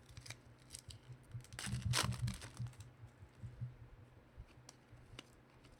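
Trading cards and their packaging being handled: light clicks and rustles, with a louder crinkling scrape about two seconds in. A low steady hum runs underneath.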